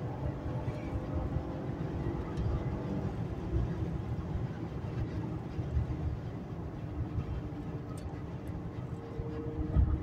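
Acura TL's 3.5-litre V6 running at highway speed, heard from inside the cabin over steady road and tyre rumble.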